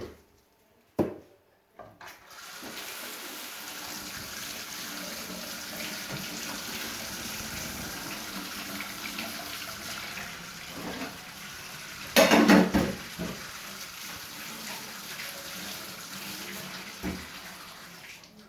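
Kitchen tap running steadily into a sink, switched on about two seconds in and off near the end, with a brief louder burst of splashing and knocking about twelve seconds in.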